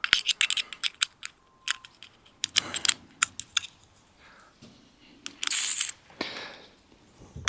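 Savage Mark II bolt-action .22 LR rifle being handled and reloaded after a misfire: irregular metallic clicks and rattles from the bolt and action as a fresh cartridge goes in. A short burst of hiss comes about five and a half seconds in.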